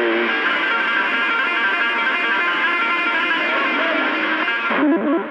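Electric guitar music coming through a CB radio's speaker, played over the channel by a transmitting station. It is steady and loud and cuts off near the end.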